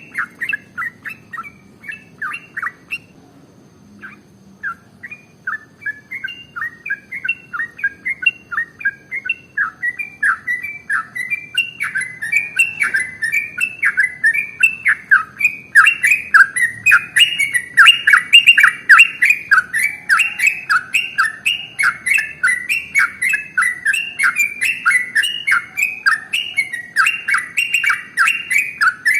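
Yellow-vented bulbul (trucukan) singing a long, rapid run of chirping notes, its continuous 'ropel' song of the kind keepers play to set other bulbuls singing. The song breaks off briefly about three seconds in, then resumes and grows louder and denser from about halfway, at roughly three notes a second.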